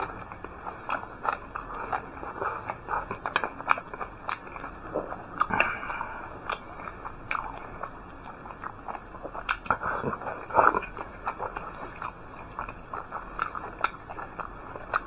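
Close-up eating sounds: a person biting and chewing a large steamed bun with raw chili peppers, with irregular wet mouth clicks and crunches, a cluster of louder ones about two thirds of the way in.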